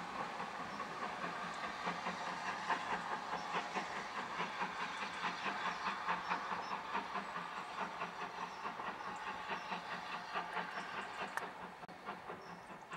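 Steam train working uphill out of sight, a quick regular run of beats over a steady hiss, fading slightly near the end.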